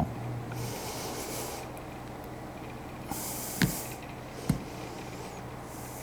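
Hands working a nylon seal ring onto a swivel spindle: two sharp clicks as the parts knock together, between soft breathy rushes of air, over a low steady hum.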